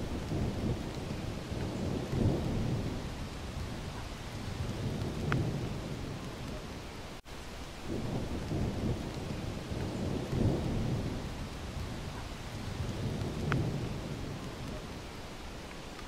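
Waterfall pouring into a plunge pool: a low rushing rumble that swells and ebbs every few seconds, cutting out for an instant about seven seconds in.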